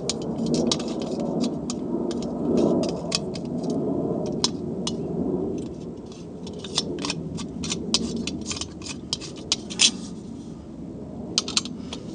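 Irregular small metallic clicks and clinks as a knob, screw and washers are threaded and handled on a stainless steel pot lid, thickest in the second half. Low steady background noise underneath.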